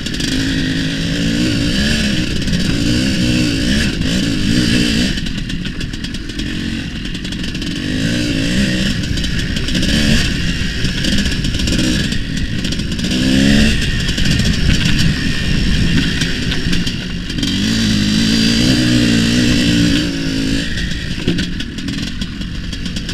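Tuned single-cylinder two-stroke engine of a homemade IZh Planeta-based cross-enduro motorcycle, with a reed valve and expansion chamber, being ridden hard. Its pitch rises and falls again and again as the rider revs it up and shifts.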